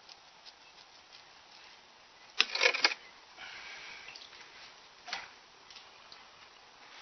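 A quick cluster of sharp clicks and knocks about two and a half seconds in, then a single knock a few seconds later, over faint ticking: handling noise, as of a filter or its housing being knocked into place.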